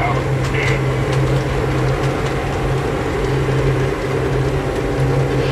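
Model train locomotive running on the layout: a steady, constant low engine hum with a few faint clicks about half a second in.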